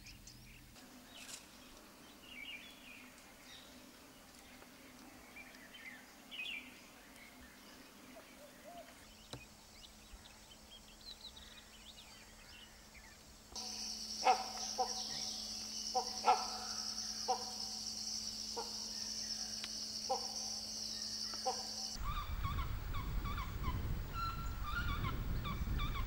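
Faint, scattered bird chirps in grassland. About halfway through, Indian pied hornbills begin giving loud, harsh, repeated calls that sound like they have a bad throat, over a steady high-pitched drone. Near the end, wind rumble comes in with a string of repeated bird calls.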